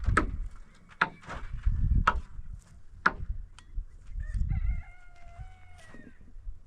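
A rooster crowing once, a single drawn-out crow in the second half. Before it come four sharp knocks, about one a second.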